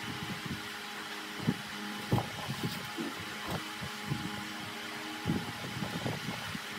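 A workshop machine's motor running with a steady hum, with irregular knocks and thumps over it, the loudest about one and a half, two and five seconds in.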